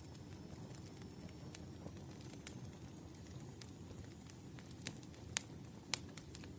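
Wood fire crackling: a steady low rumble of burning logs with scattered sharp pops, the two loudest near the end.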